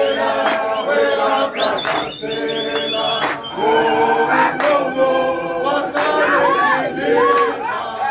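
A group of voices singing a liberation song together without instruments, with a few sharp claps cutting through now and then.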